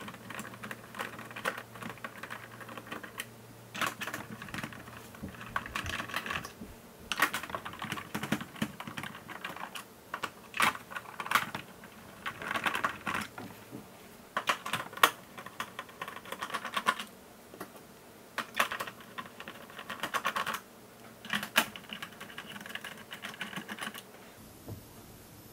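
Plastic chassis of a Roborock robot vacuum being worked apart by hand: repeated short bursts of fast clicking and scraping, about one every second or two, with sharp knocks of plastic in between.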